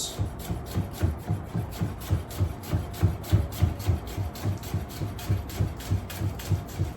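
Chef's knife finely slicing scallions on a cutting board: a steady run of quick knocks, about four a second.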